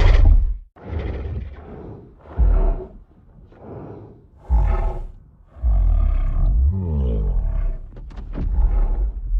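King Kong creature sound effects: a run of about six separate deep roars and grunts, the last one a longer, wavering growl that fills the second half.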